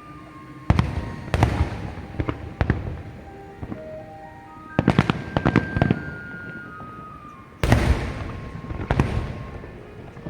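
Fireworks shells bursting in loud separate bangs, with a rapid crackling cluster about five seconds in and two big bursts near the end. A melody plays from a sound system underneath.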